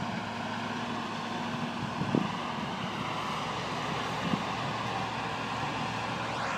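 Heavy cotton-harvest machinery running steadily: a constant engine drone under a broad noise, with two brief low thumps about two and four seconds in.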